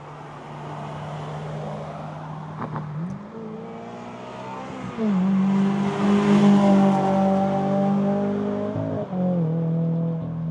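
Toyota GR86's 2.4-litre flat-four running through an HKS Hi-Power single-exit exhaust. The exhaust note climbs and gets louder a few seconds in, holds steady, then dips briefly near the end, like a gear change, before settling again.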